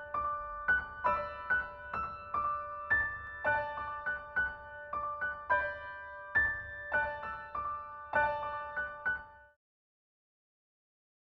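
Background music: a gentle piano melody of single notes struck about twice a second, each fading away. It stops about two seconds before the end, leaving silence.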